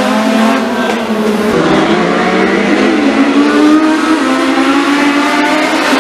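A pack of Legends race cars running together around a dirt oval, their Yamaha 1250 cc motorcycle engines overlapping at different pitches that rise and fall as the cars go around.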